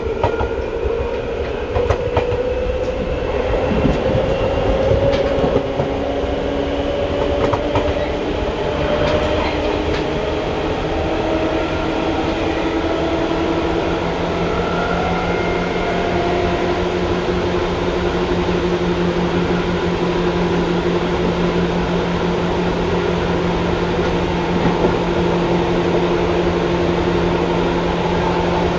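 Seibu 2000 series electric train running: the whine of its field-chopper-controlled traction motors and gears rises in pitch as the train picks up speed for roughly the first half, then holds steady as it runs at constant speed. Steady wheel-on-rail running noise underneath, with a few knocks from the wheels over rail joints early on.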